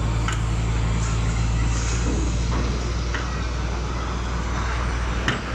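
Hitachi excavator's diesel engine running steadily with a low hum, the deeper part of the hum easing about halfway through. A few light clicks and one sharper knock near the end.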